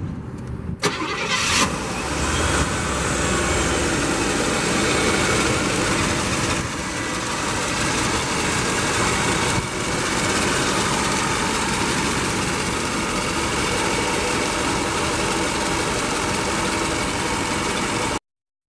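The 1984 Cadillac Eldorado's 4.1-litre HT4100 V8 starts about a second in, then settles into a steady idle. The sound cuts off suddenly near the end.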